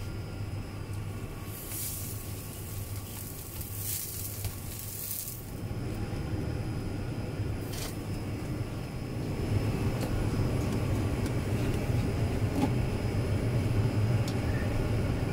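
Steady low rumble of kitchen equipment under short hissing scrapes of glutinous rice being stirred in a steel wok. A single metal clank comes about eight seconds in as the rice is scooped into a steamer pot.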